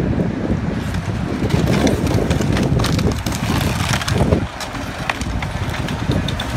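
Tracked excavator running as its bucket tears into a wood-frame house: a loud rumble of splintering and collapsing timber with many sharp cracks and snaps. The crashing eases about four and a half seconds in.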